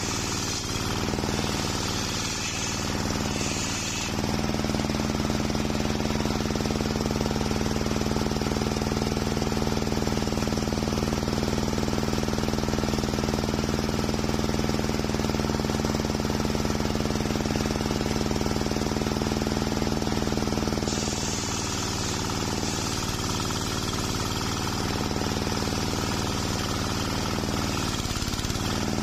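Homemade table circular saw ripping a waru log lengthwise: a loud, steady machine drone from the blade and its drive. The sound shifts in the first few seconds and again about two-thirds of the way through, as the feed of the log through the blade changes.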